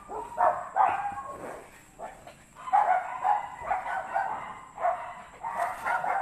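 Dogs barking and yelping in a run of short, pitched calls, sparser about two seconds in and coming thick and fast after that.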